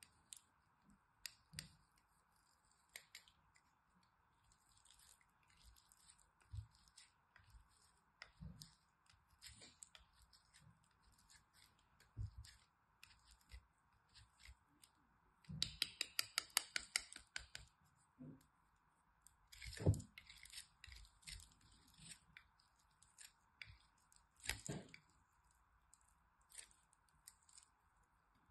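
Bar soap being grated on a small metal box grater: scattered scraping strokes, a quick run of rapid strokes about halfway through, and a couple of louder knocks later on.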